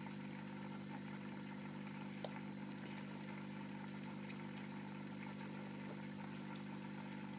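A steady low hum with a few faint ticks: quiet room background with no clear event.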